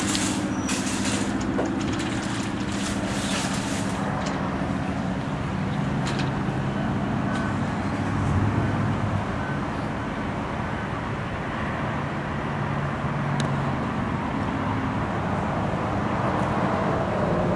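Steady hum of vehicle engines and road traffic, with a low engine drone whose pitch shifts now and then.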